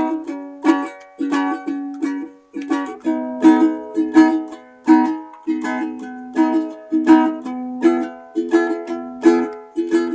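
Instrumental song intro strummed on a plucked string instrument: a steady rhythm of chords, about two strokes a second, each ringing briefly and dying away, with no voice. It is picked up through a clip-on lavalier microphone.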